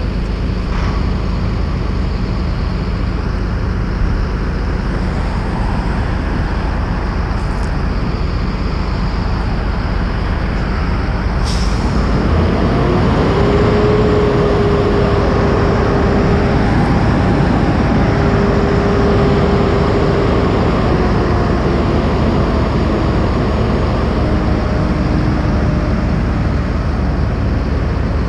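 Road traffic with a steady low rumble. About halfway through, a vehicle passes and grows louder, carrying a steady whine that drops in pitch as it moves away.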